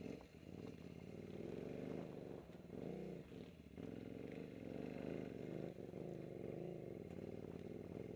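KTM 950 Super Enduro's 942 cc LC8 V-twin engine running under the rider's throttle, its note rising and falling with a few brief dips as the revs change.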